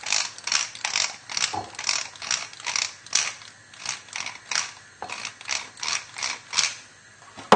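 Pepper mill being twisted by hand, its grinder crunching peppercorns in a steady run of short strokes, roughly three a second.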